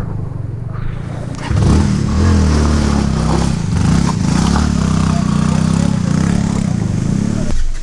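Motorcycle engine revving hard and unevenly under load in low gear as the bike struggles through deep mud and rocks, its pitch rising and falling. It is lower for the first second or so, then jumps in level and stays loud.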